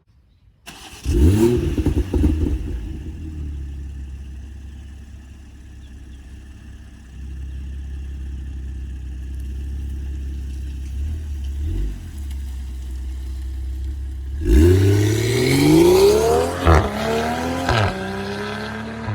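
BMW X3 M40i's turbocharged B58 inline-six starting with a loud flare of revs that settles into a steady idle. Near the end it is revved once and falls back to idle, with sharp pops and crackles from the exhaust as the revs drop, from an aggressive BM3 burble tune.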